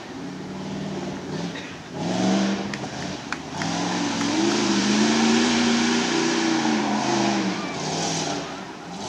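Lifted Jeep Grand Cherokee's engine revving hard as it drives the dirt course, its pitch climbing through the middle and then falling away near the end. A few sharp knocks come about three seconds in.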